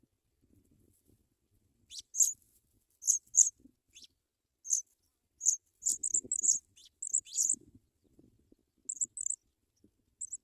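African pipits chirping at the nest: a run of short, very high-pitched chirps in irregular clusters, starting about two seconds in.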